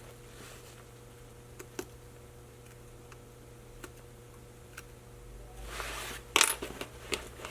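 Handling and cutting at a backpack zipper seam: a few faint clicks of the tool and fabric, then a louder, brief scrape or snip about six and a half seconds in as the seam is cut.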